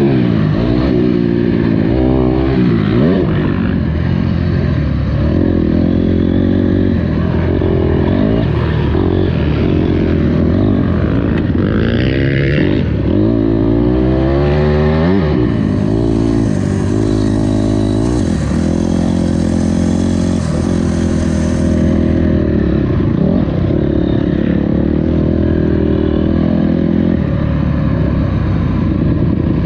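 Honda CRF250R's single-cylinder four-stroke engine being ridden around a motocross track, its pitch rising and falling over and over as the throttle is opened and shut through the gears and jumps.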